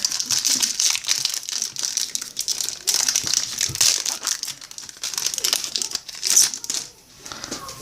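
Plastic trading-card pack wrappers crinkling and rustling as the packs are handled and opened, in fits and starts with brief pauses.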